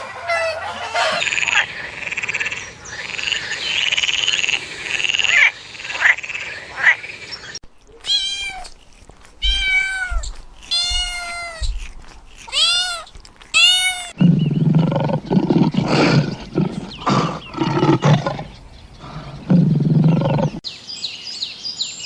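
A series of animal calls. First comes a noisy stretch, then about six short, high calls that rise and fall in pitch, then a run of low calls repeated in quick pulses.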